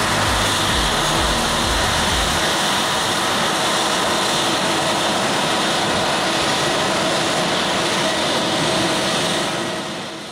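Airliner's jet engines idling while the plane stands stopped at the gate: a loud, steady jet noise that fades out near the end.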